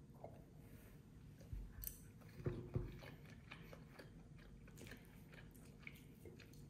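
Faint chewing and biting while eating chicken stew, with a few soft clicks and knocks scattered through it.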